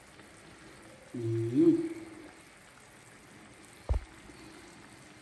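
Low steady hiss, with a man's short vocal sound about a second in and a single sharp knock just before four seconds.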